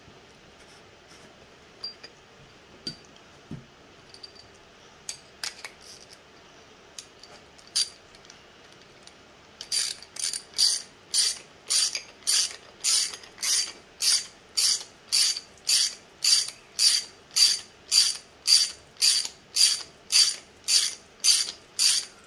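A few light clicks of small parts being handled, then a hand ratcheting driver clicking in a steady back-and-forth rhythm, about two strokes a second, as the nut is run down on the roller's bolt.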